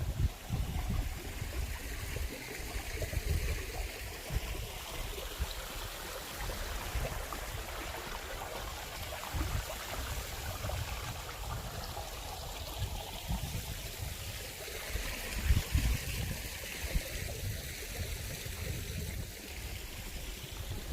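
Water running in a stream, with wind buffeting the microphone in low gusts; one strong gust comes about three-quarters of the way through.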